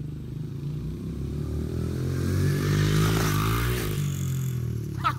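Honda CRF70 dirt bike's small four-stroke single-cylinder engine revving hard on the run-up to the jump. It grows louder and higher to a peak about three seconds in, then drops in pitch and fades.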